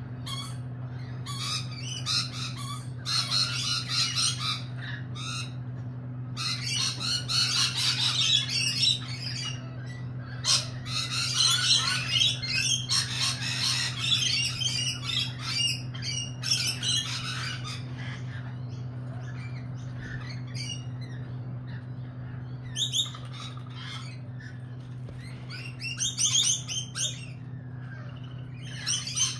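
A flock of rainbow lorikeets making shrill, chattering calls in busy bursts through the first two-thirds and again near the end. A steady low hum runs underneath.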